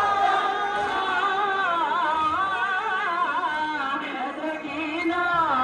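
A voice singing a noha, a Muharram mourning lament, in a slow, wavering melody heavy with vibrato and ornament.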